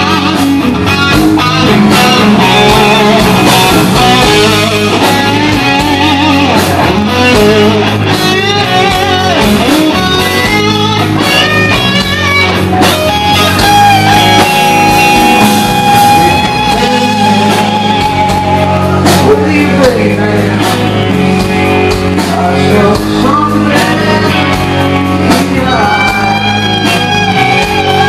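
Live rock band, loud: an electric guitar solo of bent, vibrato-laden notes over bass and drums, with one note held for about three seconds midway.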